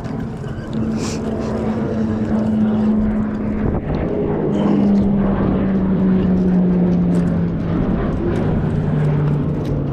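Propeller aircraft passing overhead: a steady engine drone that grows louder toward the middle and falls slowly in pitch, with wind noise underneath.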